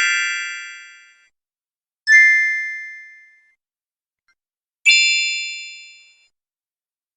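Three separate bright, bell-like ding sound effects, each sounding once and ringing away over about a second, with silence between them. The second ding is thinner, with just two main tones.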